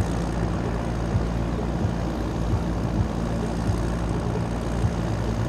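John Deere farm tractor's diesel engine running steadily under load, pulling a weighted brake sled slowly along a tractor-pull track.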